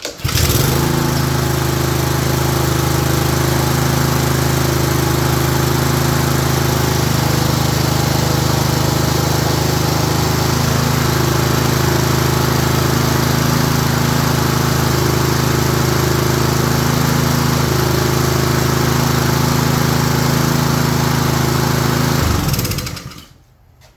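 Honda four-stroke lawn mower engine on a Craftsman self-propelled mower catching right away and running steadily for about twenty seconds, then shut off and winding down near the end. It runs now that a misplaced gasket has been put back in place.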